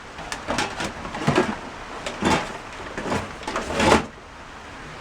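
Things being handled and shifted inside a cardboard box: a series of short rustles and knocks, which stop about four seconds in.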